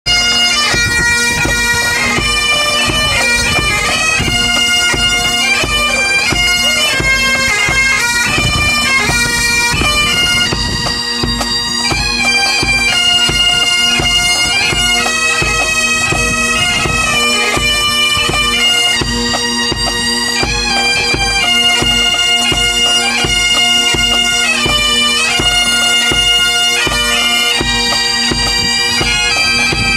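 Pipe band playing: several Highland bagpipes sound a tune of changing notes over their steady drones, with a bass drum beating time.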